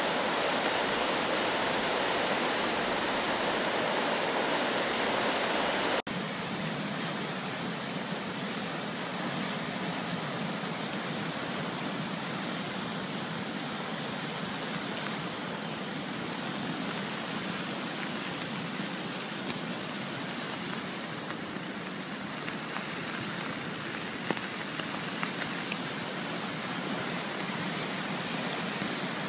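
Steady rushing of fast-flowing, swollen floodwater, mixed with rain. The sound changes abruptly and drops in level about six seconds in, then runs on as an even rush.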